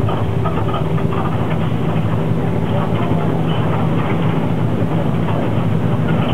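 Engine of a King Long XMQ6112GF city bus running steadily while the bus drives, heard inside the passenger cabin as a constant low hum mixed with road and body noise.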